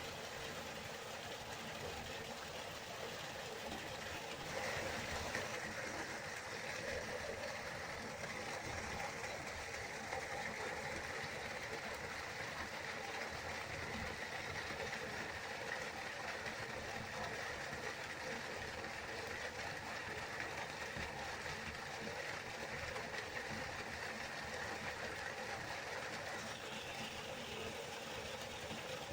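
River water flowing, a steady even rushing. A faint high steady sound sits over it from about five seconds in until near the end.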